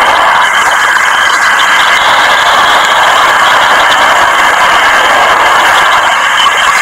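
Water jet shooting up from a ground pipe, a steady loud rushing hiss of spray splashing down onto the flooded grass.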